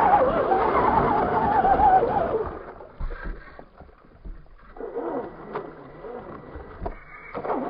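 Radio-controlled scale rock crawler's electric motor and geared drivetrain whining, the pitch wavering as the throttle is worked. It drops away for about two seconds, then picks up again more faintly with a thin steady high tone, and rises near the end.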